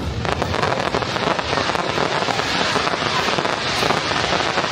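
Fireworks crackling: a dense, steady stream of small pops and crackles.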